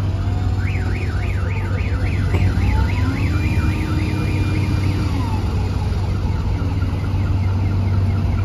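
Heavy machine's warbling warning alarm, about three or four rising-and-falling sweeps a second, over the steady drone of a diesel engine. The alarm starts about half a second in and fades to faint after about five seconds.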